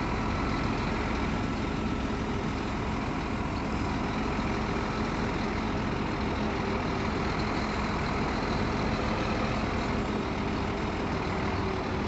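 Heavy diesel truck engine running steadily, a constant low hum.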